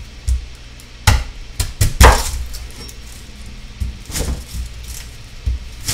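Kitchen prep clatter: a cutting board and knife knocking on a counter, a handful of sharp knocks with the loudest about two seconds in.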